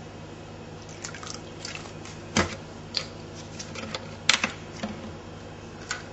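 Vinegar poured from a plastic bottle into a stainless-steel mixing bowl, with a run of short clicks and knocks as bottles are handled and set down on a stone counter, two of them louder, about two and a half and four and a half seconds in. A steady low hum sits underneath.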